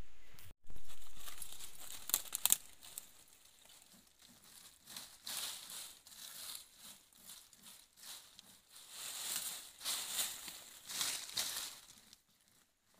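A hand scraping and brushing dry soil and leaf litter on the ground, in repeated rasping sweeps, with a few sharp crackles about two seconds in.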